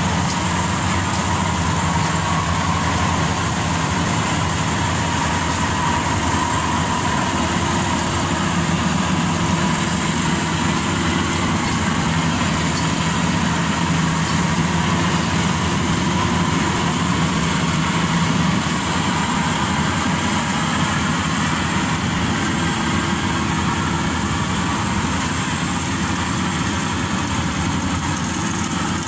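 Maxxi Bimo Evo Xtreme rice combine harvester's diesel engine running steadily as the tracked machine crawls through a muddy paddy field, a constant hum with mechanical noise over it.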